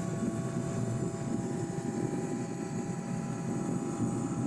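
Steady low rumbling background noise with faint steady hum tones, unchanging throughout.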